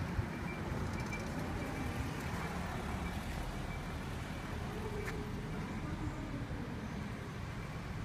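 Steady city traffic noise, a low rumble of passing vehicles, with a faint click about five seconds in.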